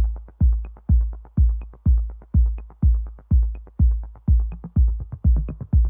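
Electronic dance music: a deep kick drum on every beat, about two a second, with a faint high tick about once a second.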